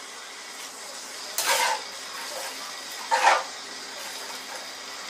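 Cold water sloshing twice in a stainless bowl of blanched long beans, two short swishes over a steady background hiss.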